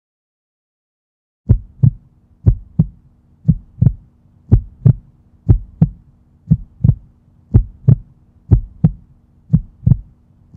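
Heartbeat sound effect: a paired lub-dub thump about once a second over a low steady hum, starting about a second and a half in.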